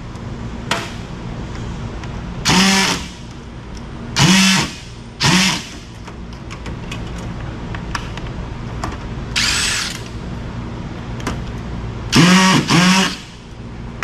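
Cordless drill-driver running in short bursts to back out screws from a microwave's circuit board, about six quick spins under a second each, the last two close together near the end.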